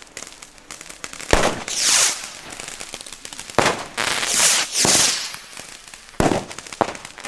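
Pyrotrade Viper 5 firecrackers going off one after another: a sharp bang about a second and a half in, another at about three and a half seconds, and two more close together near the end. The first two bangs are each followed by a loud hissing rush.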